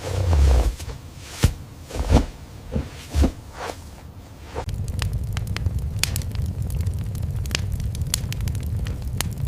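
Wood fire crackling in a fireplace: a few dull thumps and pops at first, then about halfway through a steady low rumble sets in, dotted with many sharp pops.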